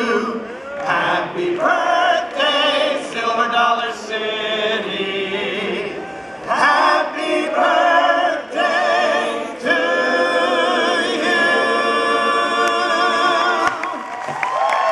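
A large group of voices singing together, ending on one long held note. As the note ends, clapping and cheering break in.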